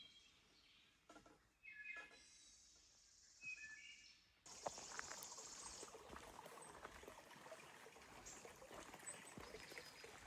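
Faint songbirds chirping in short high phrases. After about four and a half seconds this gives way suddenly to a faint steady outdoor hiss with scattered light clicks.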